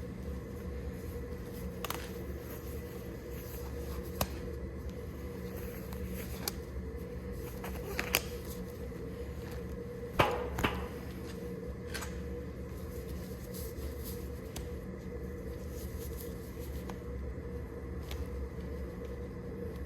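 A machine running with a steady hum, with occasional sharp metallic clicks and knocks and a louder clatter about ten seconds in.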